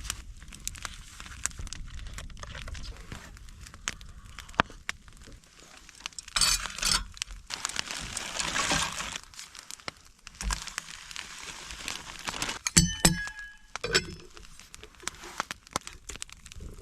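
Breakfast being prepared by hand: crinkling and rustling, scattered knocks and clicks, and a few ringing clinks about thirteen seconds in.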